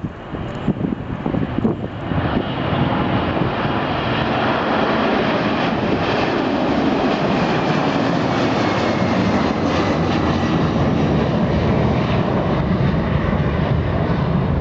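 Jet airliner engines at take-off thrust: a loud, steady rushing noise that builds over the first two seconds and then holds.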